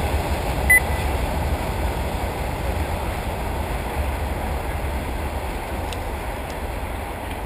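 Steady, fluttering low rumble of wind on the microphone, with one short high electronic beep about a second in.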